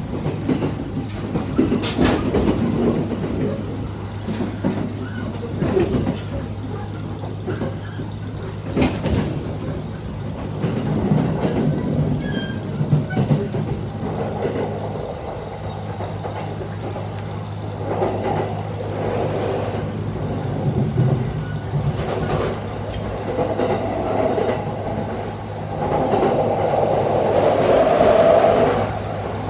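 Running noise inside a moving commuter train car, with rumble and rail-joint clicks that swell louder near the end. Under it runs a steady low hum, the abnormal noise from KuHa E230-8017's faulty air-conditioning unit.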